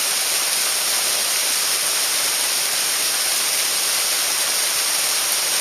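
Mountain stream rushing steadily: an even, unbroken hiss of flowing water.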